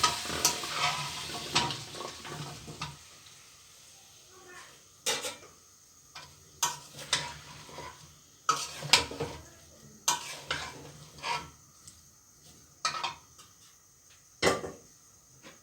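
Cauliflower florets and potato pieces sizzling as they hit hot oil in a kadai, the sizzle dying down after about three seconds. A spatula then stirs them with about a dozen separate scrapes and knocks against the pan.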